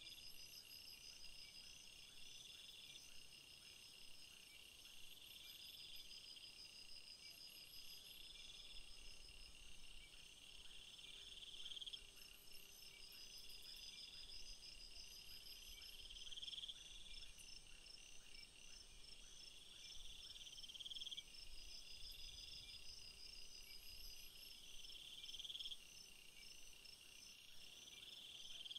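Faint chirping of insects, crickets or similar: a high call of about a second that swells and stops, repeating roughly every two seconds over a steady, faster high trill.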